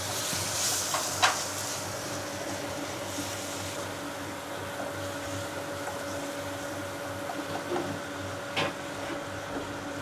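Steady hum of commercial kitchen equipment, with a spatula stirring malai (cream) in a non-stick pan. There is a brief hiss about a second in and a couple of light clicks from the spatula against the pan.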